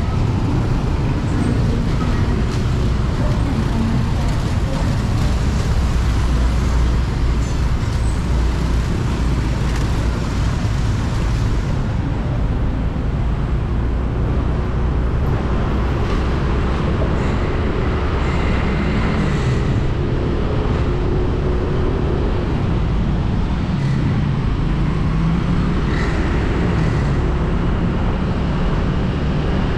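Rush-hour road traffic heard while riding a motorbike through it: a steady, loud low rumble of engines and road noise, with an engine note rising and falling in the second half.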